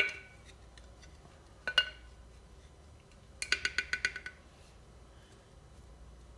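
Glass spice jar clinking against a measuring spoon: one ringing clink, another just under two seconds in, then a quick run of about eight clinks, roughly nine a second, around three and a half seconds in.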